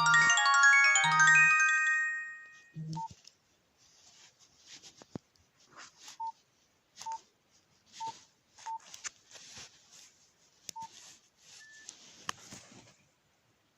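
A Nokia 1280 ringtone plays as a quick run of high electronic notes over a low pulsing buzz, and stops about two and a half seconds in. Then come about six short beeps at one pitch, with button clicks: the phone's keypad tones as keys are pressed.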